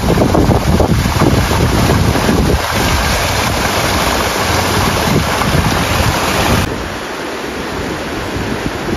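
Small waterfall splashing down a mossy rock chute into a pool, a loud steady rush. About two-thirds of the way through it cuts to a quieter steady outdoor noise.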